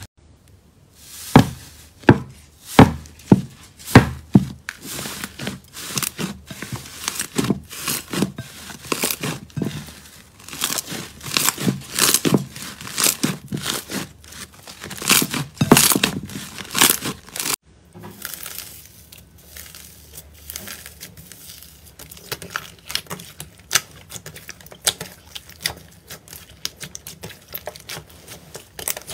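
Hands pressing, poking and stretching slime: a dense run of sharp pops and crackles from air pockets in the slime, loud through the first half. After a sudden cut, fainter and finer crackling as fluffy slime is pressed and pulled.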